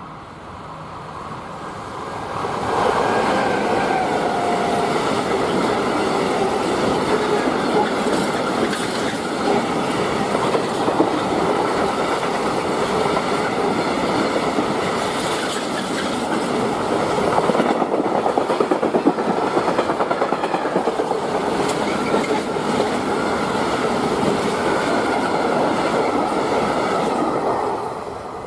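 Freight train passing close by, its wagon wheels clattering steadily over the rails. The sound swells in over the first few seconds, holds for about 25 seconds, and dies away near the end.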